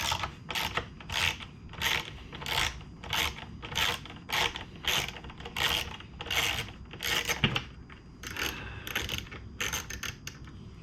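Hand ratchet wrench backing out a bolt: a steady series of clicking strokes, about one and a half a second.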